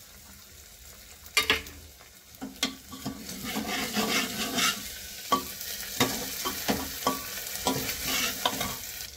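A steel spoon scrapes and clinks against the bottom of an aluminium pressure cooker as onions with grated ginger and garlic sizzle in hot oil. The clinks come irregularly, and the sizzling grows louder about three seconds in as the masala is stirred and browned.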